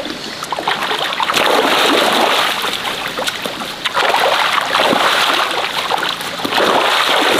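Shallow muddy water splashing and sloshing in repeated surges, with sharp splashes, as a dip net is swept through it and lifted with carp caught in it.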